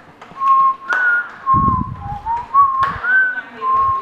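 A person whistling a short tune: clear single notes stepping up and down, several of them held briefly, with a few sharp taps and a low thud about halfway through.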